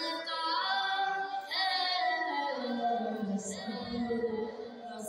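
A boy's solo voice singing an Urdu devotional kalaam in a melodic recitation style, with long, gliding held notes.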